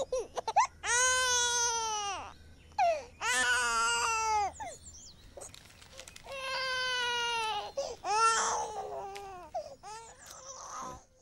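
A small child crying hard: four long wailing cries, each arching up and then falling away, with short gasping sobs between them.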